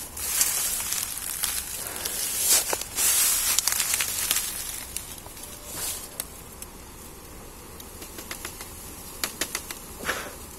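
Dry bamboo leaves and stems rustling and crackling as someone pushes into a bamboo thicket. The crackling is dense for the first few seconds, then dies down to a quieter rustle with a few sharp snaps near the end.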